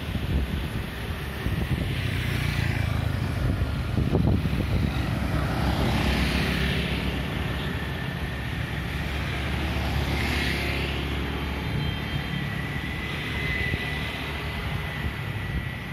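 Small motorcycle and scooter engines passing on the road. The engine noise swells over the first few seconds and eases off toward the end, where a thin steady whine comes in.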